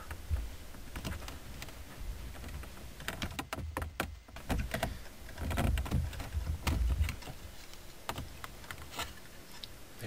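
Plastic trim cover around a car's ignition lock cylinder being pried off with a flathead screwdriver: scattered clicks and scrapes as its two retaining clips pop loose, with a few low bumps from handling.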